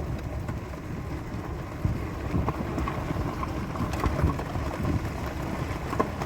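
Vehicle driving slowly, heard from inside the cabin with the side door open: a steady low rumble of engine and tyres with wind, and a few light knocks or rattles.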